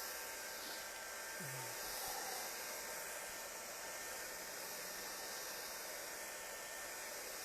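Hand-held electric hot-air blower running steadily with an even whooshing hiss, drying wet paint on the work.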